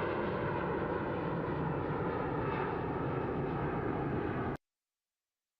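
Jet aircraft engine noise, loud and steady with faint held tones over it, cutting off abruptly about four and a half seconds in to dead silence.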